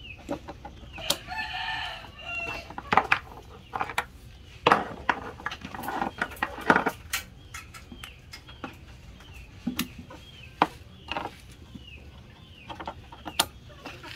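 A rooster crows once, about a second in, for about a second and a half, and chickens keep up short falling calls through the second half. Sharp clicks and knocks of cable plugs being handled at the back of stacked audio processors come throughout.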